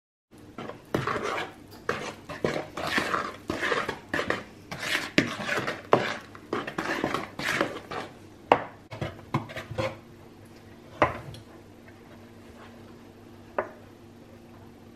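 Spatula stirring thick brownie batter in a mixing bowl, scraping and knocking against the bowl about twice a second, stopping about ten seconds in. Two single knocks follow, a second or so and about three and a half seconds later.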